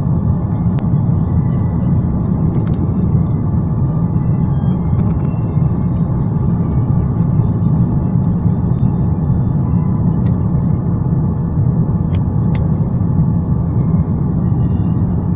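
Steady low rumble of a vehicle heard from inside, even and unchanging, with a few faint clicks.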